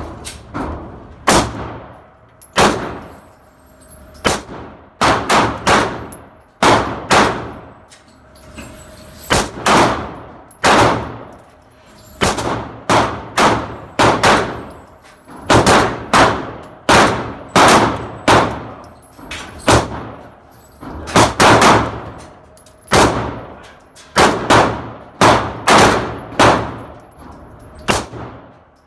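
SIG Sauer P250 pistol being fired in a long string of about thirty-five shots. They come singly and in quick runs of two to five, each a sharp crack with a short ringing decay.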